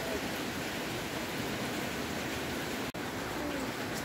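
Steady, even hiss, broken by a momentary dropout just before three seconds in.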